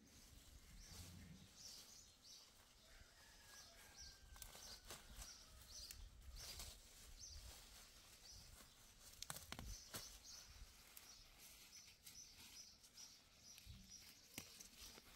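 Faint rural outdoor ambience with high chirps repeating about twice a second. A few soft knocks come near the middle.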